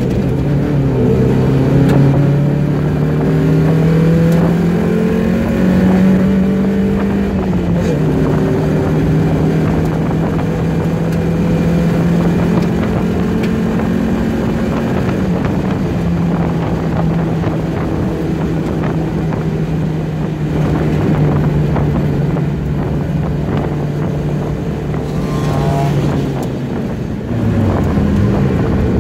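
Mazda Miata's four-cylinder engine at racing speed, heard from inside the car. It climbs in pitch under hard acceleration, drops once after about seven seconds at an upshift, then pulls steadily. Near the end it falls sharply as the car brakes for a corner.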